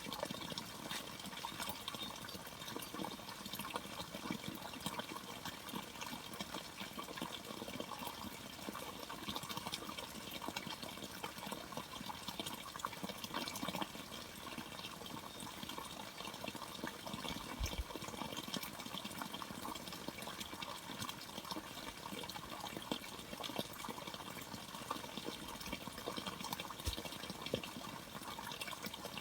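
Water running and splashing steadily, a continuous trickling rush with no breaks.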